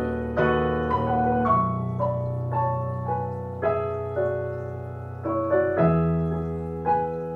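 Piano playing slow, sustained chords without vocals. Each chord is struck and left to fade, and the bass note changes twice.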